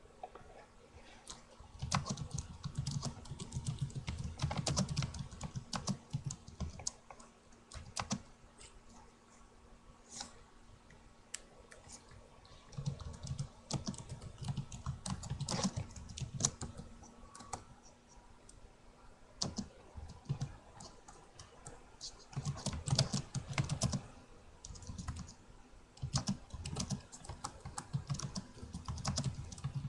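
Typing on a computer keyboard: quick runs of key clicks in bursts separated by short pauses.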